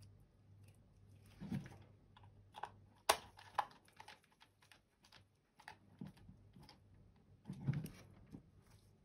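Small plastic clicks and taps from handling the parts of a SteelSeries Rival 310 gaming mouse as it is reassembled. There is one sharp click about three seconds in and a couple of duller knocks, one near the start and one near the end.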